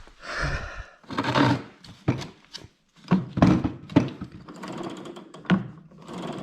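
Rear wheel of a Honda HRR216 self-propelled mower being rocked and turned by hand, giving a series of irregular clunks and clicks from the wheel and its drive gearing. The wheel has play: it feels loose on its drive gear.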